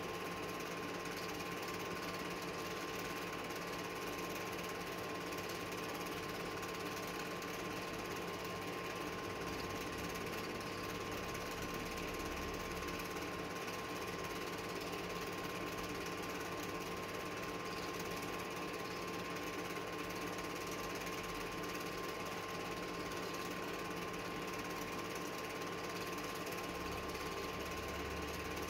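Cine film projector running: a steady mechanical clatter of the film transport with a constant motor hum underneath.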